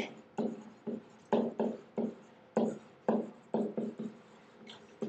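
Digital pen writing by hand on a writing surface: a run of sharp knocks and short scratches, about two a second.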